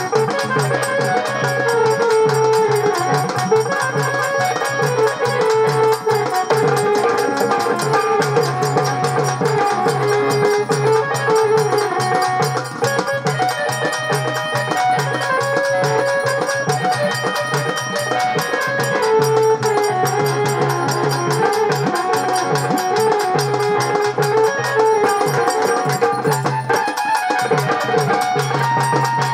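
Traditional Marathi folk music: fast, steady hand-drum percussion under a sustained melody.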